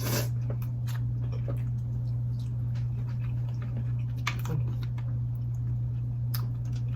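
Close-up eating sounds from a blue crab and green-lipped mussel seafood boil: chewing and smacking, with scattered short clicks and crackles. A steady low hum runs underneath throughout.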